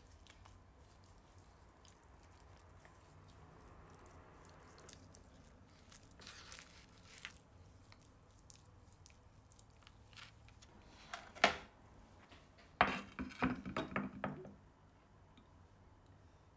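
Soft wet squishing as hands rub oil and spices into raw chicken breasts, followed by a few louder knocks and clatters near the end.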